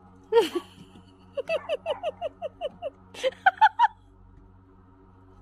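High-pitched giggling: one falling note, then a quick run of about nine short, falling laugh notes at roughly six a second, then a few higher ones, over a steady low hum.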